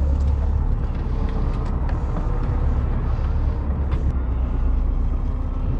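Steady low rumble of a charter fishing boat's engine running, with water and wind noise and a few faint clicks.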